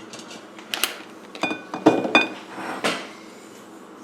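A big scoop clinking against the Instant Pot's steel inner pot and a bowl as boiled eggs are lifted out: about five sharp clinks with a short ring, spread across a few seconds.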